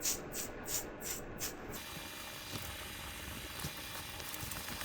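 Spray bottle of soapy water pumped in quick squirts, about three a second, for the first second and a half, then a faint steady hiss. The soapy water is being sprayed on a pressurized fuel tank to check it for leaks.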